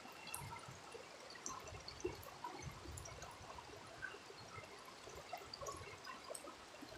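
Shallow river running over small rocky rapids: a steady, faint rush of water.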